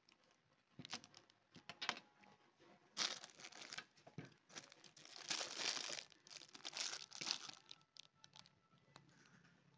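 Clear plastic packaging bag crinkling and rustling in the hands, in irregular bursts, after a few short handling clicks in the first seconds.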